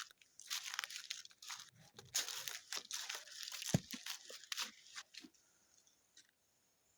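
Footsteps crunching through dry fallen leaves in uneven steps, stopping about five seconds in.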